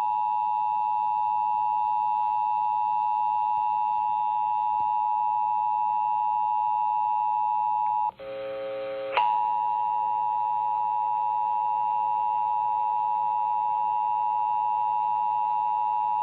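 Emergency Alert System attention signal: a steady dual tone at 853 and 960 Hz. About eight seconds in it breaks off for roughly a second, filled by a quieter buzzy tone, and then the attention signal sounds again.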